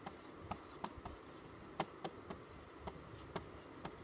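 Marker pen writing numbers on a small whiteboard: a string of short, sharp strokes, about two or three a second, as each digit is drawn.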